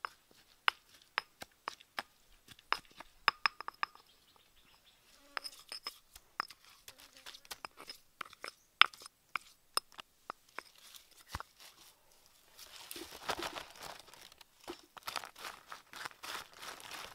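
Sharp, irregular clicks and knocks of a pestle working chilies in a small mortar. From about two-thirds of the way in, a denser crinkling rustle of fingers mixing roasted insects into the chili paste on a leaf.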